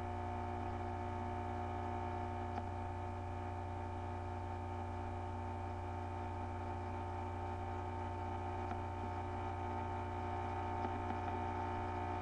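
Steady electrical hum and buzz: a low hum with several steady higher tones stacked above it, unchanging throughout, with a few faint knocks underneath.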